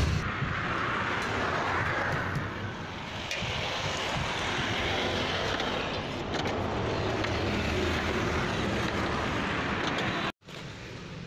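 Steady road traffic noise, vehicles swelling and fading as they pass; the sound drops out for a moment near the end and comes back quieter.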